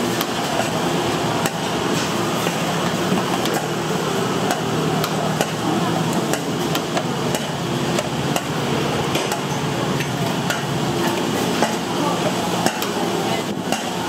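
Kitchen clatter from food preparation: irregular sharp knocks and taps of tools against work surfaces over a steady background din.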